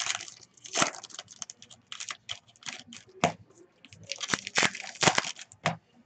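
Trading card pack wrappers crinkling and tearing as packs are ripped open by hand and the cards slid out, in irregular crackling bursts.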